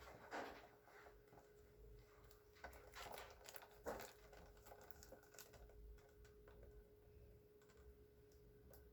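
Faint handling of a small cardboard product box: scattered light taps and rustles, a few a little louder in the first four seconds, over a faint steady hum.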